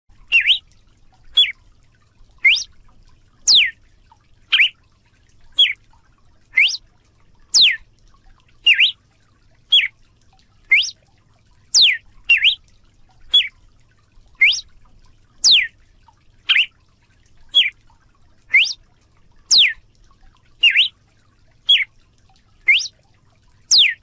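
Red-cowled cardinal (galo-de-campina) singing a steady run of short, clear whistled notes about one a second. Some rise and some sweep down from high, in a phrase that repeats every four seconds or so.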